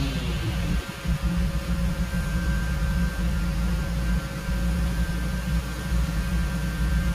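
Lawn mower running steadily: an even, low engine hum with a faint steady whine above it.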